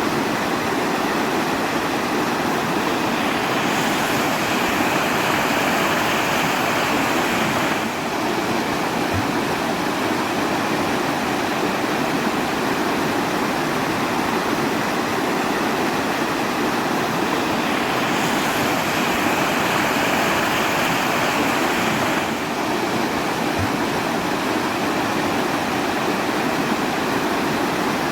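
Steady rushing water, a dense even hiss without a break. A slightly brighter, hissier stretch comes about 4 s in and again about 18 s in, repeating like a looped recording.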